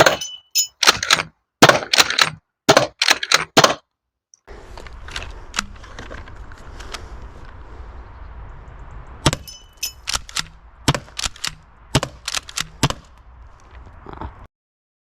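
Umarex HDX68 pump-action shotgun shooting rubber balls at a car wing mirror: a quick run of sharp cracks, pump-action clacks and hard hits, one with a brief ring. After a short gap comes a second cluster of sharp shots and strikes over a low background, with the mirror glass breaking.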